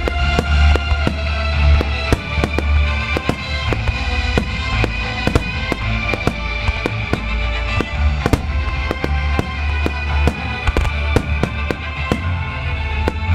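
Aerial fireworks shells bursting and crackling, many sharp bangs a second in an irregular stream, over loud music played for a display set to music.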